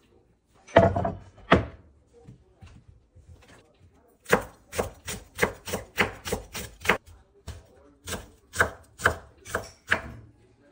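Kitchen knife slicing a green onion on a wooden cutting board: sharp, even chops about three a second, starting about four seconds in. Two louder knocks come about a second in.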